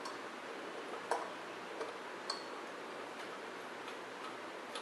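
A few small metal clicks as a chrome air cleaner lid is seated and its centre wing nut turned down, one of them with a brief high ring, over a faint steady hiss.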